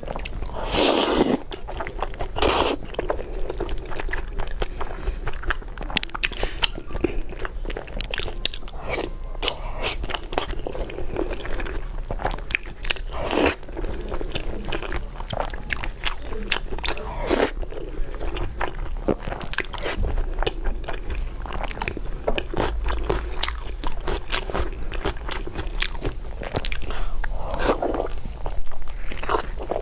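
A person biting and chewing crunchy food, with frequent short, sharp crunches at an irregular pace.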